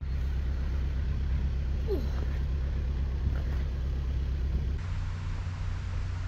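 Narrowboat engine running steadily, a low even drone, with a brief falling squeak about two seconds in.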